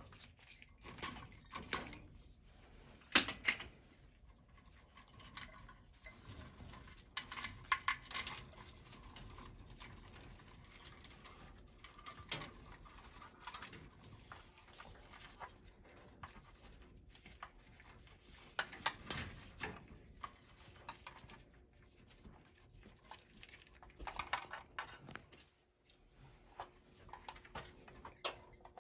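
Irregular small clicks, snips and rustles of control wire being handled and worked with needle-nose pliers, with a few sharper clicks among them.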